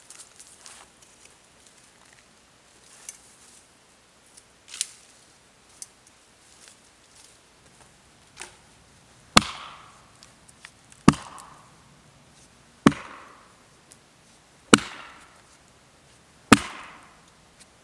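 Axe chopping dry branches lying in snow: five sharp strikes about two seconds apart in the second half. Before the chopping, lighter snaps and rustles of dry brush being handled.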